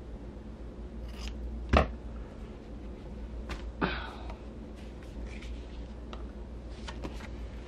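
Hands handling and arranging fabric pieces and a paper template on a padded work surface: soft rustling with a few short sharp clicks, the loudest about two seconds in and another about four seconds in, over a steady low hum.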